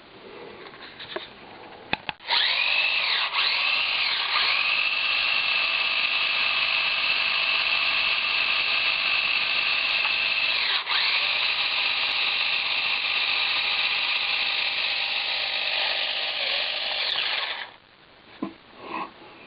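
Toy RC stunt car's small electric drive motors whining at full speed. The whine starts about two seconds in, dips in pitch briefly twice, and winds down near the end.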